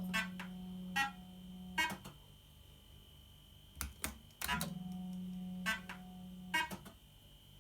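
1980s JPM Nudge Double Up fruit machine sounding two long, low electronic tones, one at the start and one from about four and a half seconds in, with sharp mechanical clicks between them and a faint steady high whine underneath.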